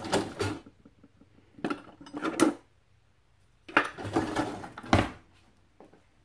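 Metal kitchen utensils clattering and scraping in a wooden drawer as someone rummages through it, in three short bursts of rattling, each ending in a knock.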